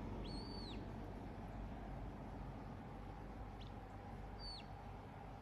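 Birds calling faintly, a few short high arched calls: one near the start and two more toward the end, over a steady low background rumble.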